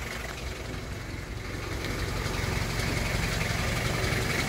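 Daihatsu Rocky F75's diesel engine idling steadily, growing slightly louder about two seconds in.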